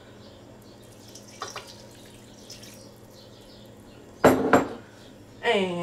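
Milk poured quietly from a glass measuring cup into a stainless steel mixing bowl, then a sharp double clink of kitchenware about four seconds in.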